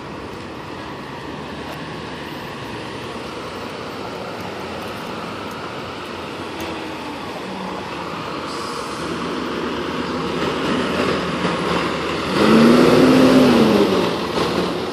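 Street traffic as a Seagrave fire engine approaches and passes close, growing louder. It is loudest about twelve seconds in, with a low tone that rises and falls over about a second and a half as the truck goes by.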